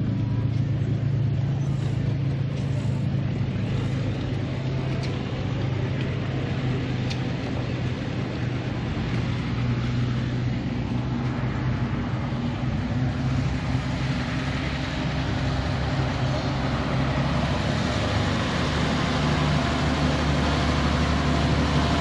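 A steady low engine hum from a nearby idling engine, under a wash of outdoor background noise. The pitch of the hum shifts slightly a couple of times.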